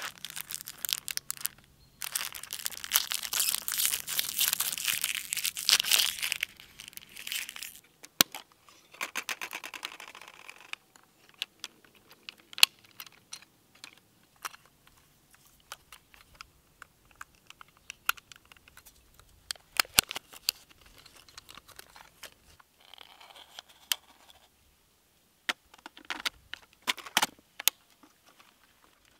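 Crinkly wrapper of a 120 film roll being crumpled and torn open for several seconds, followed by sparse sharp clicks, snaps and short rustles as the film is loaded into a Mamiya RB67 film back and the back is closed.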